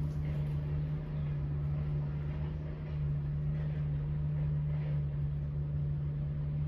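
A steady low mechanical hum with a constant drone, unchanging throughout.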